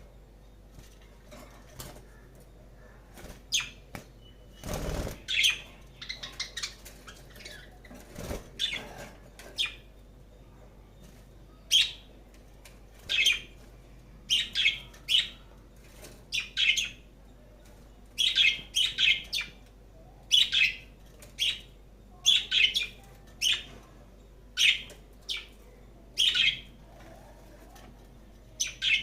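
A lovebird giving many short, sharp chirps and squawks in irregular clusters, agitated as it squares up to a tortoise. There are a couple of dull thumps in the first ten seconds.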